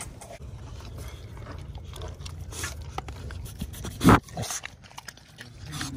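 Bully dog right up against the phone, with a low rumble of handling noise throughout and one loud, short thump about four seconds in.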